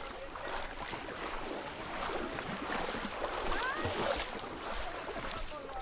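Riverside ambience: a steady rushing hiss of moving air and water, with faint distant shouts from people in the river.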